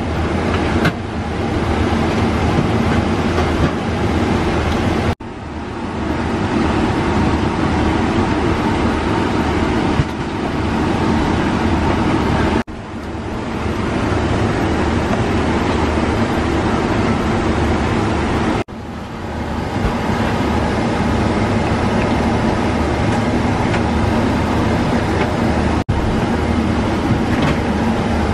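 Steady airliner cabin noise in a Boeing 777-300ER: an even rush of air with a low hum beneath. It cuts out sharply four times and swells back within about a second each time.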